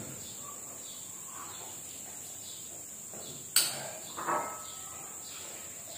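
Insects shrilling steadily at a high pitch, with a single sharp click about three and a half seconds in.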